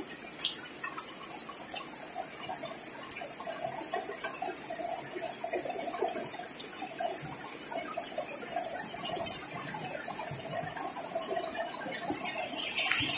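Heavy rain falling steadily on potted plants, with many small sharp taps of drops striking leaves and pots.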